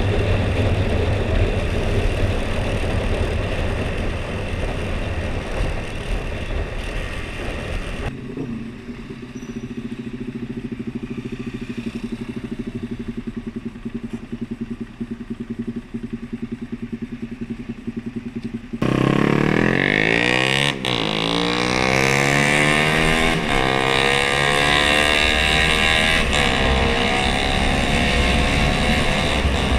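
Husqvarna Svartpilen 401's single-cylinder four-stroke engine through its stock exhaust. It runs on the move, drops to a steady idle for about ten seconds, then opens up sharply and accelerates away, its note rising through several gears.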